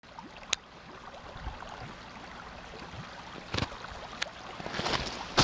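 Open water of a partly frozen creek running steadily under the ice and snow, with a sharp click about half a second in, two fainter clicks later, and louder rustling near the end.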